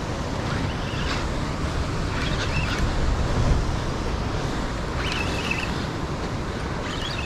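Wind buffeting the microphone over ocean swell washing against a rock ledge.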